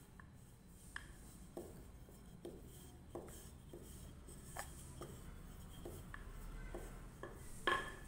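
Wooden rolling pin rolling out maida dough thin on a stone slab, with light knocks about one and a half times a second as the pin works back and forth. A louder knock with a brief ring comes near the end.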